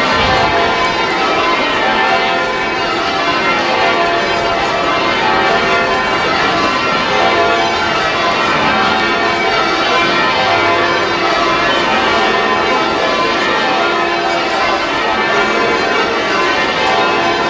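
A ring of church bells rung full-circle being rung down in peal: several bells strike together in rounds, with continuous overlapping strokes. This is the bells being lowered from the up position at the end of the ringing.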